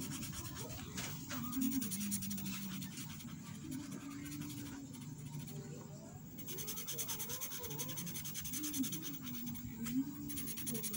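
Felt-tip marker rubbing back and forth on paper as a drawn triangle is coloured in: a continuous scratchy scribbling. Faint voices are heard in the background.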